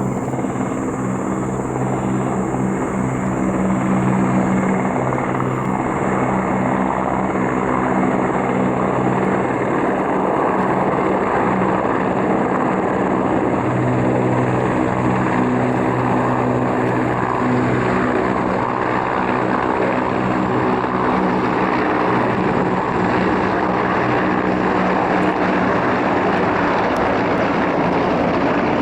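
UH-60 Black Hawk helicopters flying over: steady rotor and turbine noise with a low pulsing drone, a little louder after the first few seconds.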